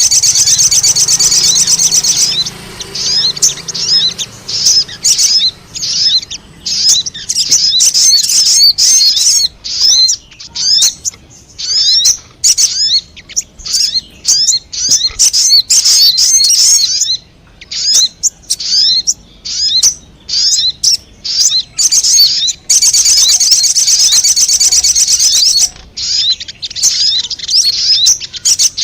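Lure-call recording of a crimson sunbird (sogon), with rapid, high-pitched sharp chirps in quick runs broken by short gaps. Continuous trilled bursts open the recording and return about two-thirds of the way through.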